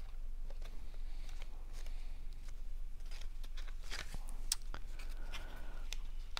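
Cardstock paper being handled and folded: scattered light rustles, crinkles and taps of the paper pieces, busiest about four seconds in, over a steady low hum.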